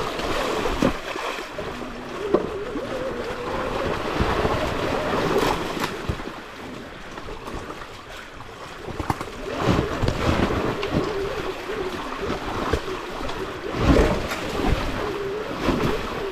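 Sur Ron Ultra Bee electric dirt bike's motor whining as it rides a rough trail, the pitch rising and falling with the throttle. Wind rushes over the microphone, and the bike knocks and thumps over rough ground, loudest about 14 seconds in.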